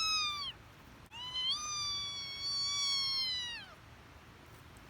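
A cat meowing twice: a short meow at the start, then a longer, steady meow that falls away at the end.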